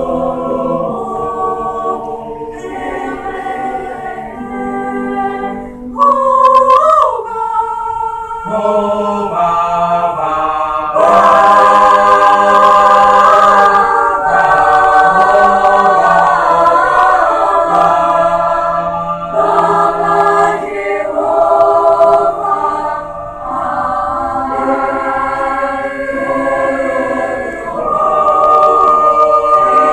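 Student choir singing in several parts, holding sustained chords, with a sudden loud entry about six seconds in and a full, loud passage near the middle.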